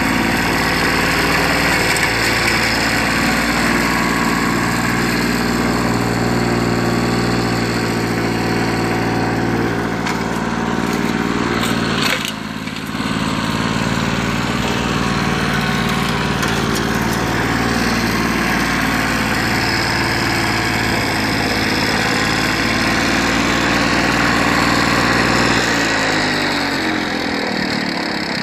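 Victa 160cc single-cylinder two-stroke rotary lawnmower running steadily while cutting long grass, with a brief dip about twelve seconds in. Near the end the engine revs drop and it slows down.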